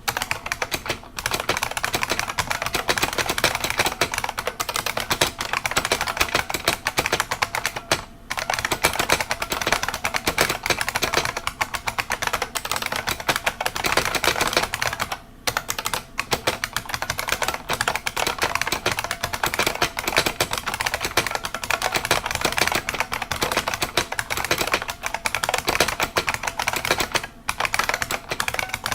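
IBM Model M buckling-spring keyboard being typed on fast and continuously: a dense stream of sharp key clicks, with brief pauses about 8 and 15 seconds in.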